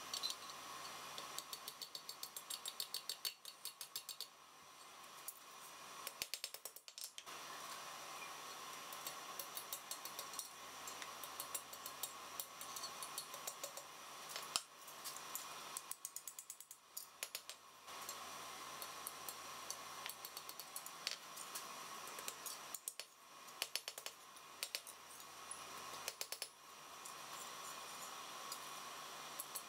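Quick runs of light hammer taps on a thin red-hot steel rod worked over an anvil's horn, coming in bursts with short pauses between, over a steady background hum.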